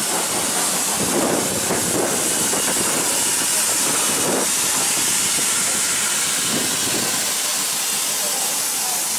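Steady hiss of escaping steam from the steam locomotive LMS Jubilee 45596 Bahamas.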